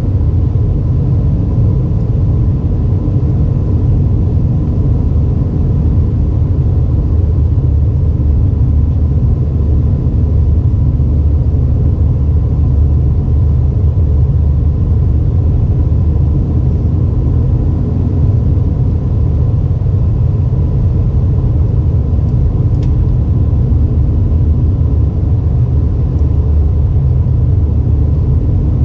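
Airbus A320 cabin noise: a steady rumble of the engines and airflow, with a faint steady hum running through it.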